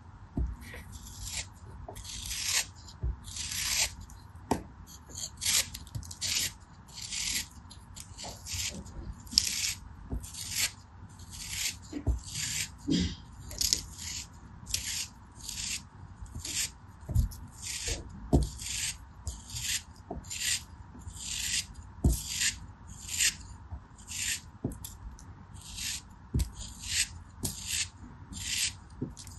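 Snap-off utility knife blade slicing and scraping through packed kinetic sand in short gritty strokes, about one or two a second.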